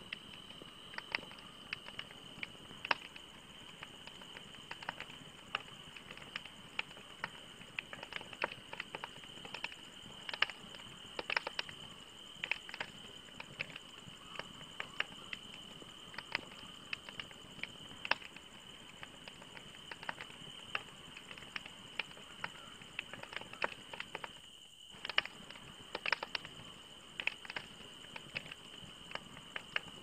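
Wood campfire crackling: logs burning with irregular sharp pops and snaps over a steady hiss. There is a brief dropout in the sound about three-quarters of the way through.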